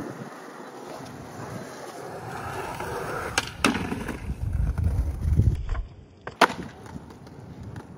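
Skateboard wheels rolling over a court, then the tail pops and the board snaps onto a concrete ledge about three and a half seconds in. The board scrapes along the ledge, then lands back on the concrete with a sharp smack about six and a half seconds in, the loudest sound here.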